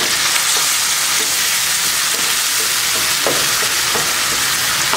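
Cauliflower florets sizzling steadily in hot oil in a nonstick pan, the hiss kept up by a little water just poured in to cook them, while a wooden spatula stirs them.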